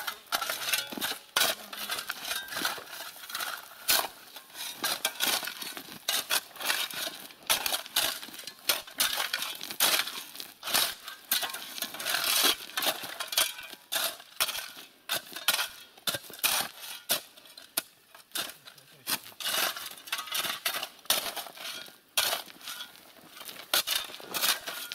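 Shovels scooping and scraping crushed stone and spreading it over a dirt road to fill potholes: a steady run of irregular gritty scrapes with gravel clinking.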